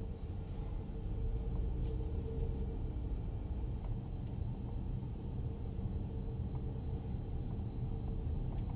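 Cabin noise of an SUV being driven: a steady low rumble of engine and tyres, heard from inside the car.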